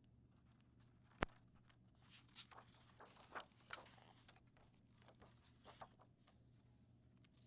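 Faint rustling of the paper pages of a hardcover picture book being handled and turned by hand, several soft swishes, with one sharp click about a second in.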